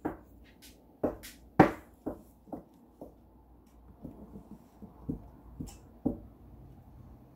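Drill pen tapping as resin diamond-painting drills are picked up and pressed onto the canvas: a run of sharp, irregular taps about two a second, loudest about a second and a half in, stopping about six seconds in.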